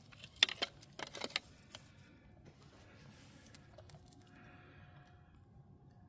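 Several sharp clicks and light metallic rattles in the first second and a half, from fishing tackle being handled while a hook is worked out of a catfish's mouth. Then only faint handling noise.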